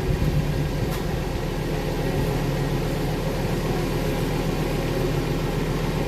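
A steady low machine hum, running evenly throughout.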